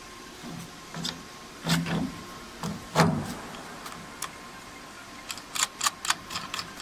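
Handling knocks and clunks as a shaker table's feed case is fitted against the deck edge by hand, with a few dull thumps and then a quick run of sharp taps near the end.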